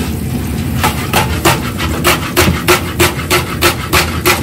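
Chef's knife chopping garlic on a cutting board: quick, even knocks of the blade against the board, about four a second, starting about a second in.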